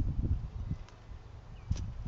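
Animals clambering on a bird feeder with the camera mounted on it: irregular low bumps and scrabbling, with a sharp click just at the start and another near the end.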